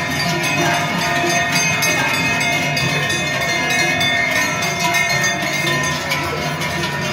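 Large cowbells on a herd of passing cattle clanging, a continuous jangle of many overlapping bell tones with frequent strikes.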